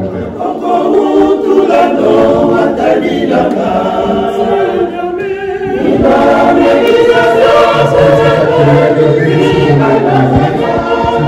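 Church choir singing a hymn, many voices together in parts.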